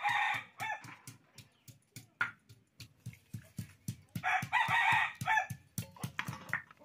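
A rooster crowing twice, once at the start and again about four seconds in, with a few shorter calls between. Underneath, a steady rapid knocking of a knife chopping on a wooden board, about four or five strokes a second.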